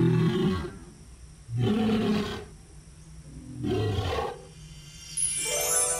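Dinosaur roar sound effect: three short, low, growling roars about two seconds apart. Near the end a falling tone with many overtones sweeps down from high to low.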